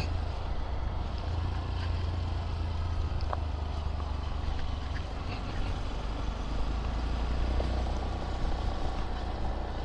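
Honda Monkey motorcycle under way: its small single-cylinder engine running steadily under a low, even rumble of riding noise.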